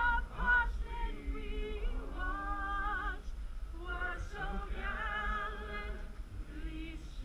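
A woman singing solo without accompaniment, slow held notes that rise and fall in pitch.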